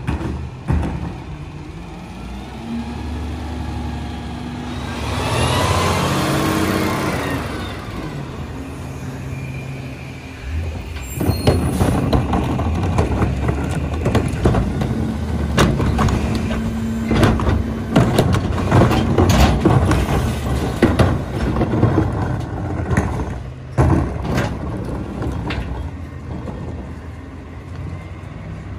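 Peterbilt 348 rear-load garbage truck running, with a hiss lasting a few seconds about five seconds in. From about eleven seconds in there is a long run of knocks and clanks over the engine.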